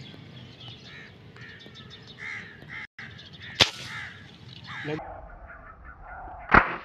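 Crows cawing repeatedly, with a sharp click about halfway through and a loud air rifle shot near the end.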